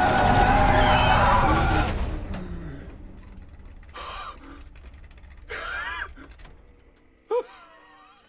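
Ford GT40 race car running hard with tyre squeal, dying away over the first two or three seconds. A man then gasps and whimpers in breathless bursts at about four and six seconds, with a short cry near the end.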